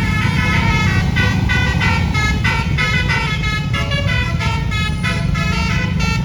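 Bus telolet basuri musical horn playing a quick melody of changing notes, over the low steady rumble of the bus's running engine.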